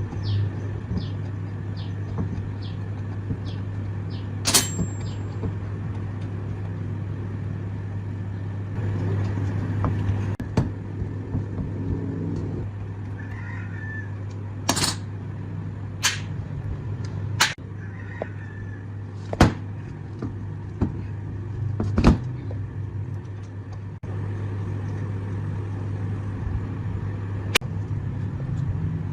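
Sharp knocks and clinks every few seconds, with a quick run of light clicks near the start, over a steady low hum.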